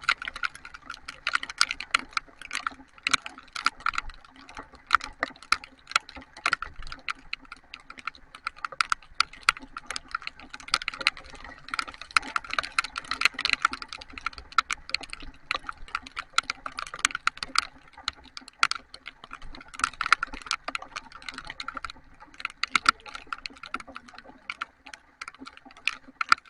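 Heavy rain, the drops tapping hard and irregularly on a surface close to the microphone in a dense patter of sharp clicks.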